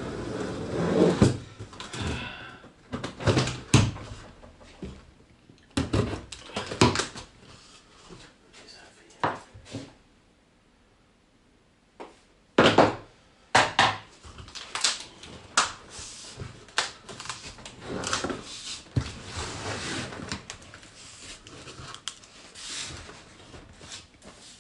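Cardboard monitor box and its foam packing being handled: a run of scrapes, rustles and knocks, with a short pause about ten seconds in.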